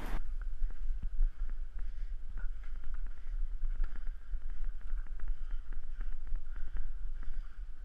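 Wind rumbling on a head-mounted camera's microphone, with scattered small knocks and rustles of movement over grass.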